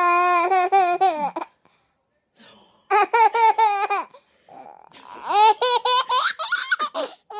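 A baby giggling in three loud bouts of quick, high-pitched pulses, the last bout the longest.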